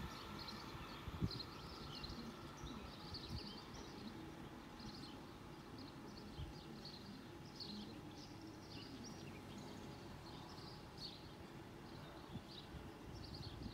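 Small birds chirping repeatedly over faint outdoor background noise, with the last of a passing train's sound dying away in the first second.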